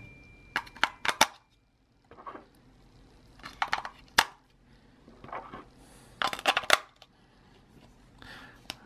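AA batteries being pushed into the plastic battery compartment of a toy remote controller: a scatter of sharp clicks and clacks in small clusters of two or three.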